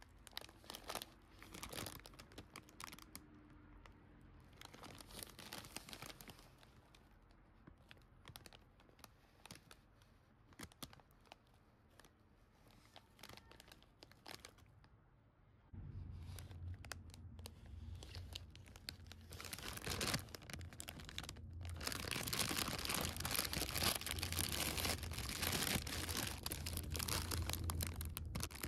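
A foil-lined popcorn bag crinkling as it is handled and turned. About halfway through it gets louder and denser, crackling and tearing as the bag is torn open.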